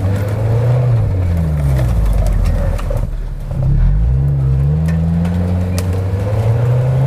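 Suzuki Escudo's engine revving up and falling back in long swells under load. The 4x4 is straining against brush on a snowy slope and cannot move off.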